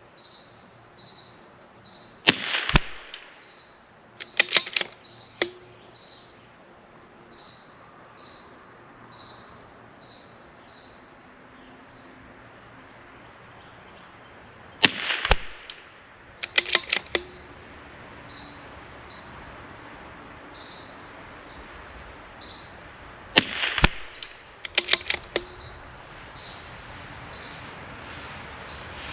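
Three .22LR rifle shots from a CZ 457 bolt-action rifle firing subsonic SK Rifle Match ammunition, each followed a second or two later by quick clicks of the bolt being worked. Crickets or other insects drone steadily and chirp throughout.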